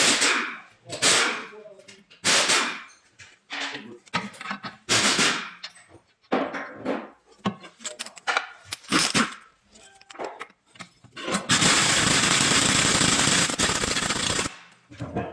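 A man talking in short phrases, then, near the end, a loud continuous burst of a workshop tool lasting about three seconds that stops abruptly.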